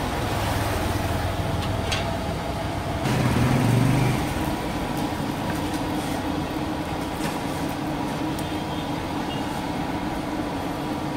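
Bhatura deep-frying in a kadhai of hot oil, a steady sizzle with the clink of a slotted spoon, over the rumble of street traffic that swells louder about three seconds in.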